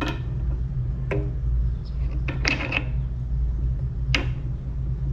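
A handful of short, sharp plastic clicks and knocks as a plastic steering-wheel hub is handled and fitted onto a riding mower's splined steering shaft, over a steady low hum.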